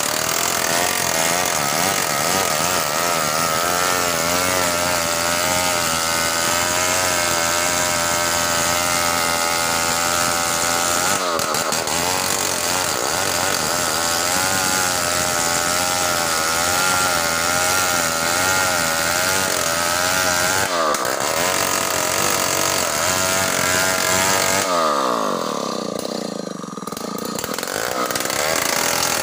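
Large chainsaw running at high revs while cutting through a big hardwood log, its engine pitch wavering under load. About three-quarters of the way through, the revs drop steeply, then pick back up.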